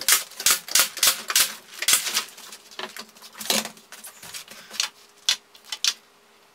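Pneumatic nail gun firing nails into a wooden door-jamb board: a quick run of sharp shots, about three a second, then a few more spaced out.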